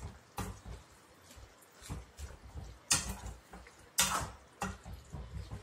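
A spoon stirring thick fish curry in a metal kadai, scraping and knocking against the pan in irregular strokes. The two loudest knocks come about three and four seconds in.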